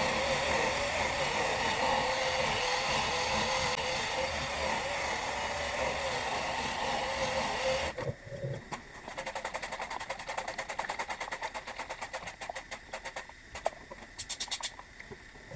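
Workpro 12-volt cordless sander/polisher running against a plastic headlight lens, its motor whine wavering as the load changes. It stops suddenly about halfway through, leaving a quieter, fast run of light scratchy ticks.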